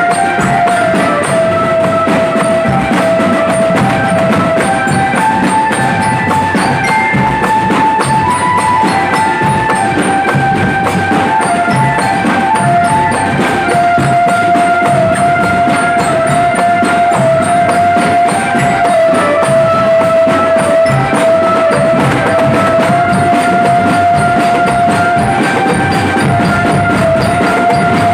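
Marching drum band playing: bass and tenor drums beat a steady, dense rhythm under a held melody line that steps between a few notes.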